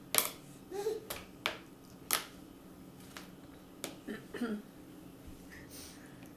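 A baby eating in a high chair: about six sharp clicks and taps of a spoon and hands on the plastic tray, spread over the first four seconds, with two brief little baby sounds, one near the start and one about four seconds in.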